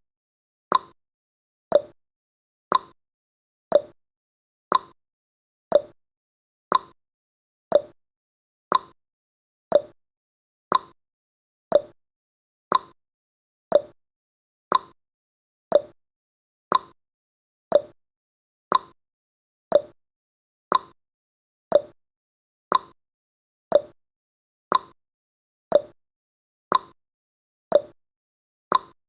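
Countdown timer's clock-style ticking sound effect, one sharp tick each second, alternating between a higher tick and a lower tock.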